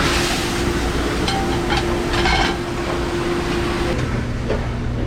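Busy commercial kitchen din: a steady machine drone with a constant tone that stops about four seconds in, under a noisy wash and some clatter of dishes.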